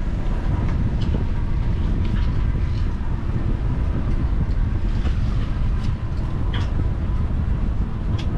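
Wind buffeting the microphone on an open boat deck, a steady low rumble, with a few faint sharp clicks.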